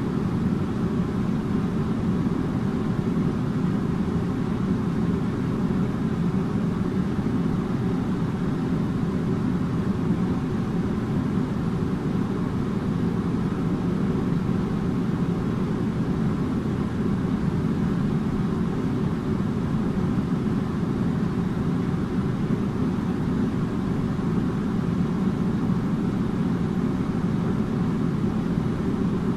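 Air conditioner running steadily: a constant low fan rush with a faint steady hum, unchanging throughout.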